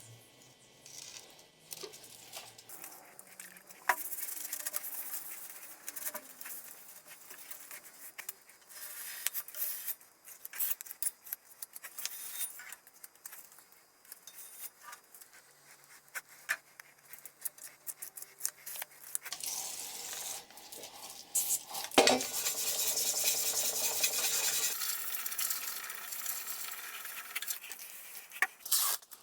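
Metal parts and tools clinking and scraping in irregular clicks. About two-thirds of the way through comes a louder stretch of hissing, scraping noise lasting about five seconds, with one sharp knock inside it.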